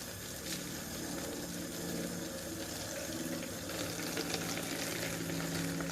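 Cold water tap running, pouring water into a plastic bottle: a steady rush of water with a faint low hum under it.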